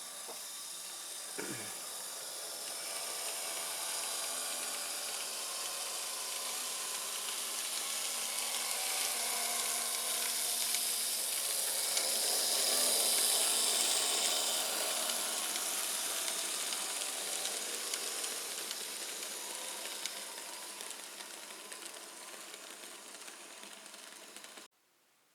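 Z-gauge model train running on its track: a steady hissing rush of wheel and motor noise with a faint hum. It swells to a peak about halfway through, fades away, and cuts off abruptly near the end.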